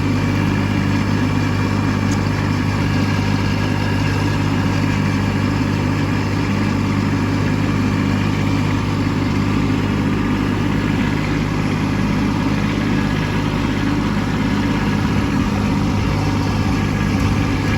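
Kubota B2601 compact tractor's three-cylinder diesel engine running at a steady speed as the tractor pulls up an icy, snow-covered hill.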